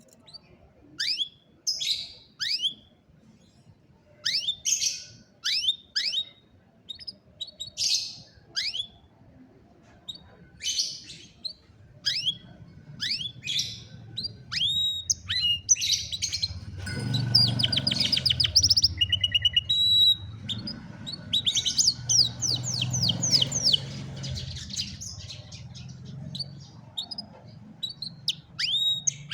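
Domestic canary singing: first short, separate chirps that sweep down in pitch, then, about halfway through, a continuous song of fast rolling trills. A low rumble sits under the densest trills.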